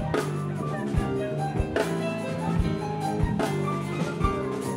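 Live instrumental band playing: electric bass holding low notes, keyboards playing above it, and a drum kit with kick drum strikes and cymbals.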